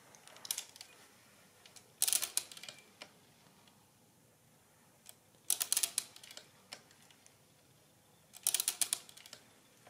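Monroe Model K mechanical calculator, casing removed, being hand-cranked: each turn of the crank gives a short clatter of quick metal clicks from the mechanism. There are four clatters about three seconds apart, the first lighter.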